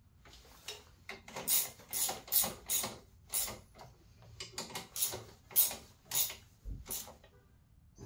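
Metal hand tool working the chain adjuster bolts on a kids' electric ATV's rear axle: a string of short, sharp metallic clicks, irregular, about one or two a second.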